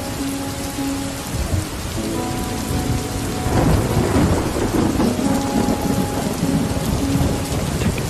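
Rain falling steadily with rolling thunder, a thunder rumble swelling about three and a half seconds in, under a few soft held music tones.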